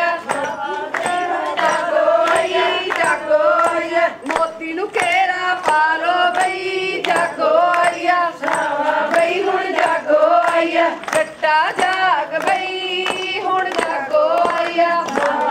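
A group of women singing a Punjabi jaggo folk song together, over a steady beat of sharp clicks.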